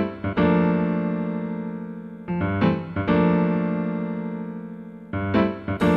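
Background music: electric piano chords, each struck and left to ring and fade, a new chord about every two and a half seconds. Near the end the music fills out and turns brighter.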